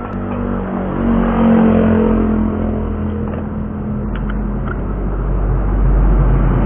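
A large truck's engine running on the road, its low rumble growing louder as it approaches. A couple of light clicks about four seconds in.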